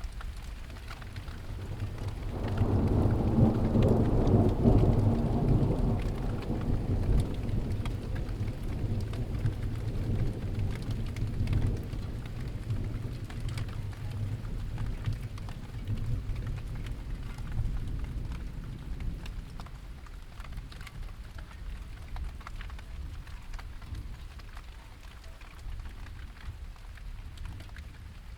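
Steady rain falling, with a roll of thunder that swells about two seconds in and rumbles away slowly over the next twenty seconds.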